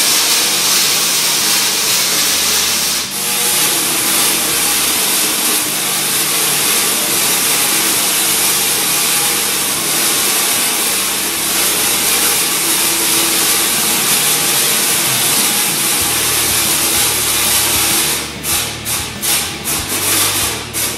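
Tesla coil discharging: its sparks crackle and buzz loudly and without a break. Near the end the discharge breaks into a quick series of short separate bursts.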